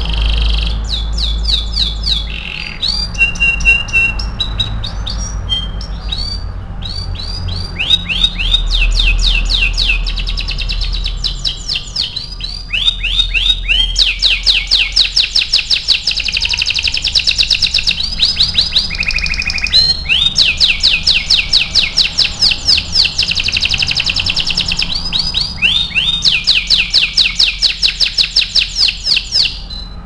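Domestic canary singing a long, continuous song of rapid trills, each a fast run of repeated downward-sweeping notes, with a couple of short steady whistles between the rolls.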